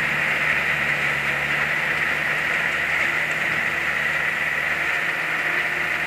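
Kubota DC60 rice combine harvester running steadily under load as it cuts and threshes rice, its diesel engine and machinery humming at an even pace.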